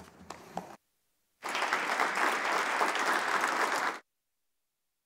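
Applause from many people clapping. It starts suddenly about a second and a half in and cuts off abruptly about two and a half seconds later.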